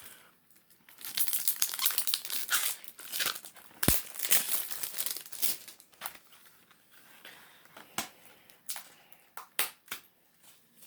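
Plastic wrapping crinkling and tearing as a CD case is unwrapped and handled, with a sharp click about four seconds in and several more plastic clicks near the end as the case is worked open.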